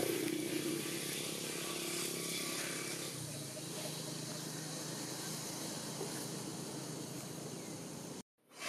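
Steady outdoor background noise with a low, even hum underneath, which cuts off suddenly near the end.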